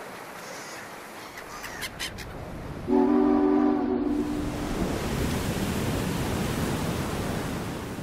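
A ship's horn sounds one long blast of several tones at once about three seconds in, lasting under two seconds, over a steady rush of wind and sea noise that carries on after it.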